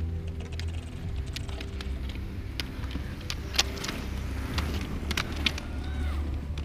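Roller-ski wheels rumbling steadily on asphalt, with sharp clicks of ski pole tips striking the road about once a second.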